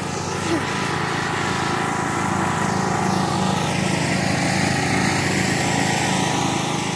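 An engine running steadily, a continuous even drone.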